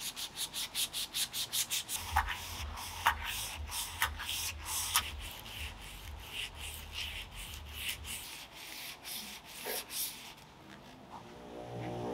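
Sandpaper rubbed by hand back and forth over a metal knife handle: quick, even scratchy strokes about five a second at first, then slower and more irregular. Near the end a bench motor starts to hum as a buffing wheel spins up.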